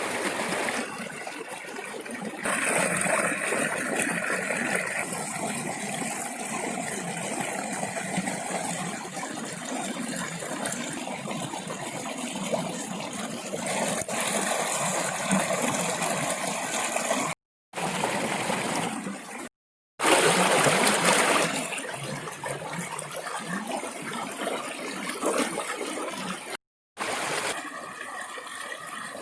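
Running, trickling water, cut off abruptly several times.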